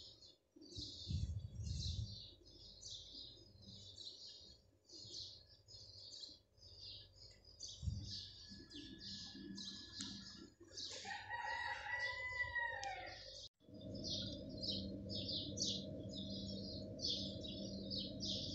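Spoon scraping and stirring a dry chicken-and-vegetable filling in a pan, about two strokes a second. A rooster crows once in the background a little past the middle.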